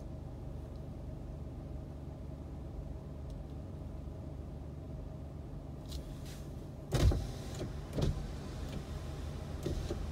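Car idling while stopped, heard from inside the cabin as a steady low hum. About seven seconds in come two loud thumps a second apart, with a few fainter knocks around them.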